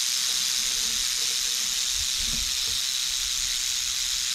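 Timber rattlesnake rattling its tail in a steady, unbroken buzz: its defensive warning at being touched and moved. A few low bumps come about halfway through.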